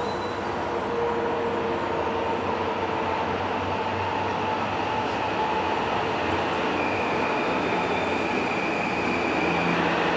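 Metro-North M8 electric multiple-unit train approaching and entering the station: a steady rumble of wheels on rail. A thin high whine comes in about seven seconds in and the sound grows a little louder near the end as the train draws alongside.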